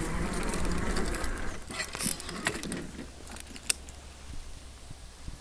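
Bicycle ridden over a dirt forest path with steady tyre and frame rumble, then coasting: the freewheel ratchet clicks in a run of sharp ticks for about two seconds as the bike rolls to a stop.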